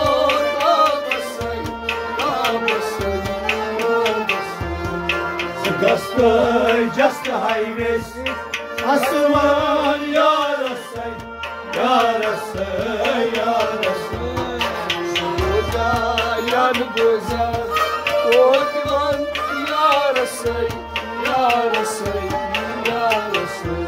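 Instrumental passage of devotional folk music: a harmonium playing the melody, a rabab being plucked, and a hand drum keeping a steady beat of roughly one stroke a second.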